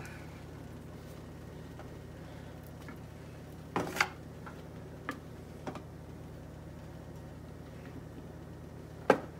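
A few short, sharp clicks and taps as butternut squash slices are set down by hand into a thin aluminium foil pan, with a pair about four seconds in and the loudest near the end. A steady low hum runs underneath.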